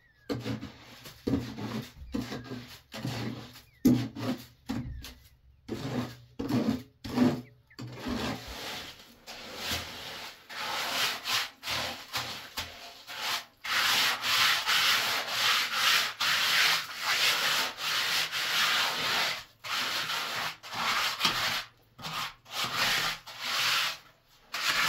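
Hand trowel scraping over a freshly laid wet cement floor as it is spread and smoothed, in repeated back-and-forth strokes. The strokes are short and separate at first, then run together into an almost continuous scraping from about nine seconds in.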